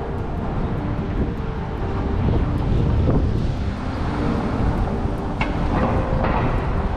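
City street traffic: a steady low rumble that swells about two seconds in as a vehicle goes by, with a couple of brief higher-pitched sounds near the end.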